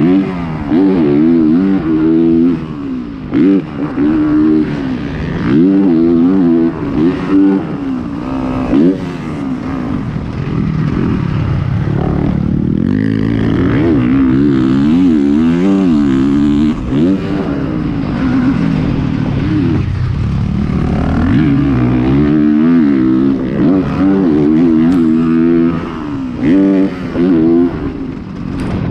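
Motocross dirt bike engine ridden hard around a track, its pitch climbing and falling over and over as the throttle is opened and chopped, with short drops in loudness between pulls.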